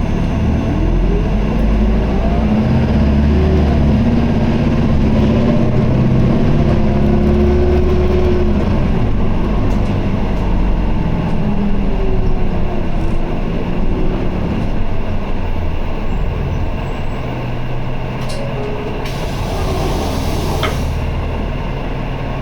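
Isuzu Erga city bus (2PG-LV290N3) diesel engine and drivetrain heard from inside the cabin, the gearbox held in fourth gear in POWER mode. The engine note rises in the first few seconds as the bus pulls away, then runs steadily. A burst of air hiss comes about 19 seconds in.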